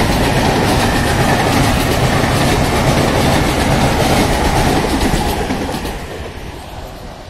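Passenger train of coaches passing close by at speed, its wheels running loudly on the rails in a steady dense rumble that fades away from about five and a half seconds in as the train moves off.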